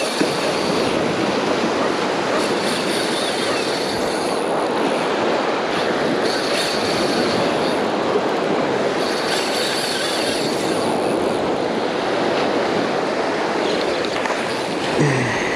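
Steady surf and wind noise, with a spinning reel whirring in spurts of a second or two while a hooked fish is fought.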